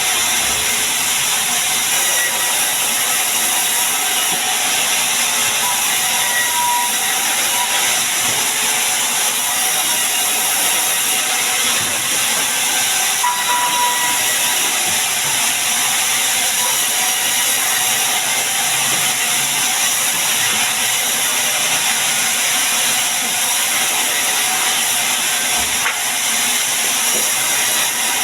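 Sawmill saw cutting sengon timber: a loud, steady, high-pitched noise that holds without a break.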